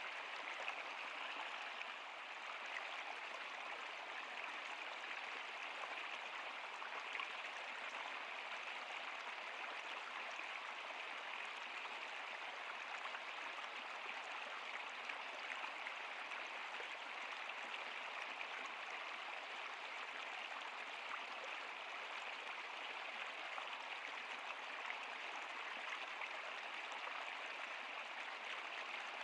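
Stream water flowing: a steady, even rush with fine scattered splashing ticks.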